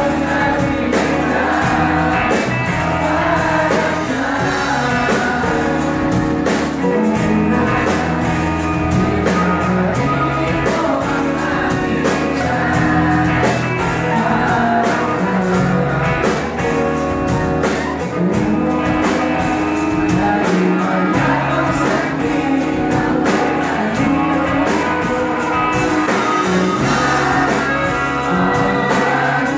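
Live pop-rock band playing through a club sound system: singing over electric guitars, bass and a steady drum beat.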